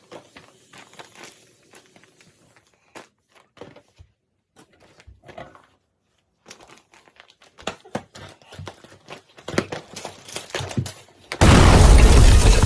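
Paper crinkling and crackling as it is handled: sparse at first, growing busier, then a loud burst of dense rustling close to the microphone about 11 seconds in.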